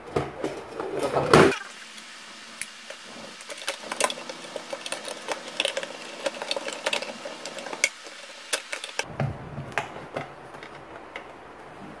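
Irregular small clicks, taps and scrapes of plastic as the red horn strobe's housing is handled and its cover fitted back on; the alarm itself is not sounding.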